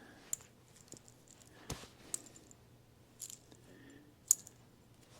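Light metallic clicks and clinks of small steel parts being handled as a thrust bearing is tried on a steering-box shaft and does not fit. It gives a handful of separate clicks, the sharpest about four seconds in, over a faint steady hum.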